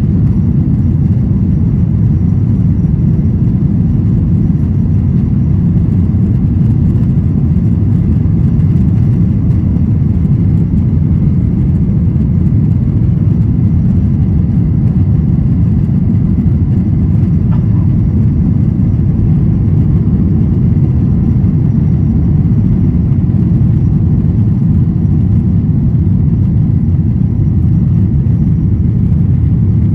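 Cabin noise of a Boeing 737-900ER in its initial climb just after liftoff: the steady, loud, low rumble of its CFM56-7B engines at takeoff thrust together with the rush of air over the fuselage, heard from inside the cabin.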